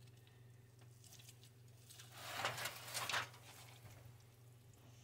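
Plastic meat claws tearing into a tender smoked pork butt in a foil pan: a wet tearing and squishing for about a second around the middle, over a steady low hum.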